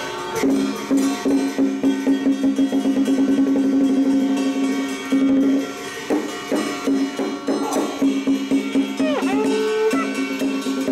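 Traditional temple-festival music: a held reed-horn melody over fast wood block and drum strokes.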